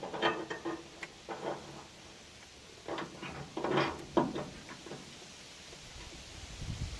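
Metal parts clattering and clinking in several short bursts, each with a brief ringing tone, as hardware is handled and set in place.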